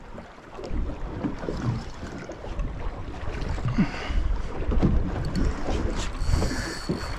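Wind buffeting the microphone on a small boat at sea, a steady low rumble with scattered faint clicks, and a faint high whine near the end.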